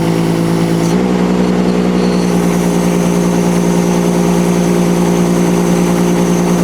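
HY16C mini excavator engine running steadily, its pitch stepping up slightly about a second in. A faint high whine joins about two seconds in and holds.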